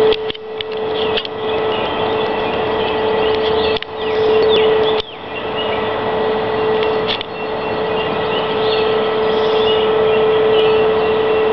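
Loud unidentified droning sound holding one steady pitch over an even, hiss-like noise, with birds chirping faintly.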